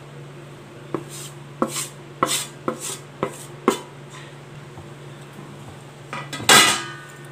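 Steel plate and wooden spatula knocking against a nonstick kadai as rice flour is tipped into hot milk and stirred in. About six sharp taps come over the first four seconds, then a louder scraping clatter near the end.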